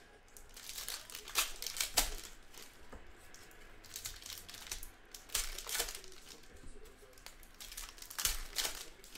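Trading-card pack wrappers and box wrap crinkling and tearing as packs are opened by hand, in short irregular spells.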